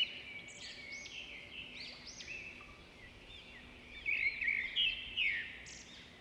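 Recorded birdsong played back through a smartphone speaker: many quick chirps and whistled calls over a faint hiss, loudest in a flurry about four to five seconds in.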